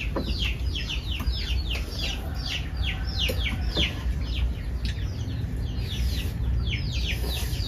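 Birds chirping: a rapid, steady run of short, high, falling chirps, about three a second, over a low steady rumble.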